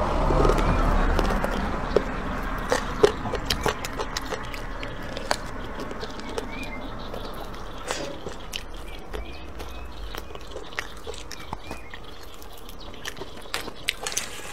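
Close-up gnawing and chewing on bony meat, with sharp irregular clicks of teeth on bone and cartilage. A louder stretch of noise fills the first couple of seconds.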